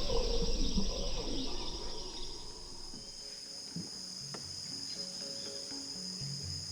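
Rainforest insects buzzing in a steady high-pitched chorus, with soft low background music notes coming in near the end.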